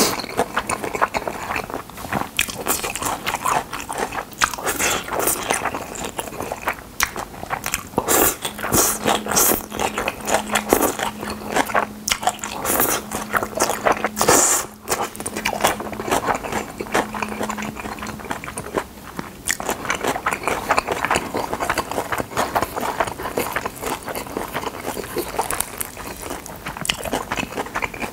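Close-miked eating of jjolmyeon, chewy Korean cold noodles with shredded vegetables: noodles slurped into the mouth, then wet, sticky chewing with some crunch from the raw vegetables, going on without a break.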